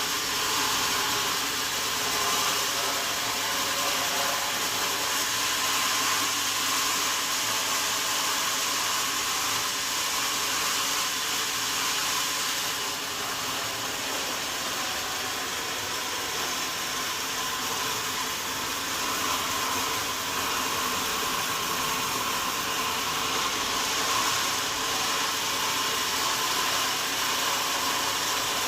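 Sawmill machinery running steadily, a continuous whirring noise that eases slightly partway through.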